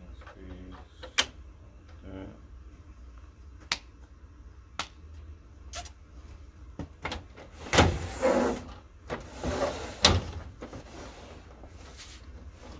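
Plastic parts of an office laser printer being handled and fitted: scattered clicks and knocks, a louder sliding scrape about eight seconds in, and a sharp knock about ten seconds in.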